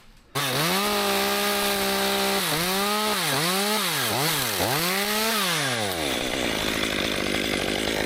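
Chainsaw starting suddenly at high revs. Its pitch dips and recovers about four times, then drops away about six seconds in to a lower, rougher running sound.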